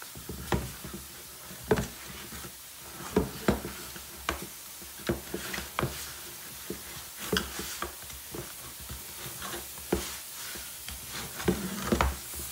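A hand mixing and squeezing soft flour-and-semolina dough in a wooden bowl: irregular slaps, rubbing and knocks of the hand against the wood, one or two a second.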